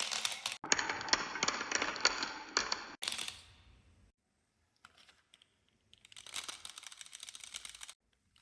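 Marbles clattering down a marble run track in a dense run of quick clicks and rattles. The sound drops away for a couple of seconds, then another run of clicking starts and cuts off suddenly near the end.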